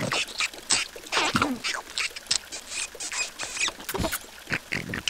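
Irregular patter and plinks of raindrops, mixed with short squeaky vocal noises from the cartoon larvae.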